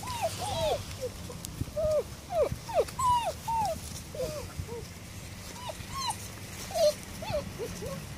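Seven-week-old puppies whining and whimpering: a stream of short high whines that rise and fall, two or three a second, some overlapping.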